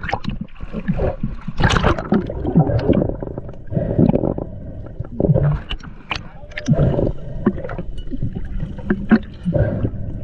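Water splashing and gurgling around a diver's camera at and just below the surface, coming in irregular surges with many sharp clicks.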